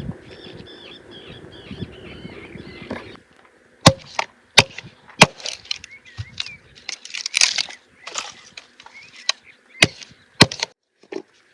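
A series of loud, sharp cracks and knocks at irregular intervals, with rustling and handling noise between them. They begin about three seconds in, after a steady outdoor background with a short run of high chirps.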